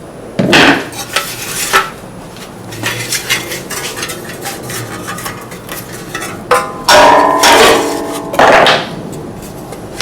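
Pull-start rope being drawn out of a push mower's recoil starter in several hard pulls, with metallic clattering and a ringing whir from the recoil housing; the loudest pulls come near the end.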